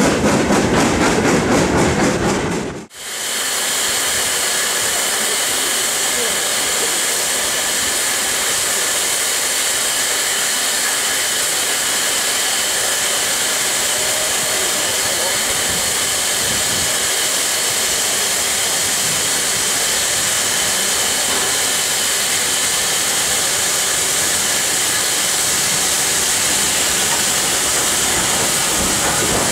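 A steam-hauled train passing with rapid rhythmic beats, about five a second; after a sudden cut, a steady loud hiss of steam at a standing steam locomotive, with a goods train drifting in beneath it.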